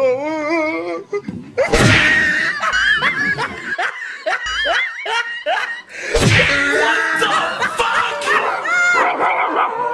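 Bursts of canned laughter and giggling, with two sudden thumps about two and six seconds in.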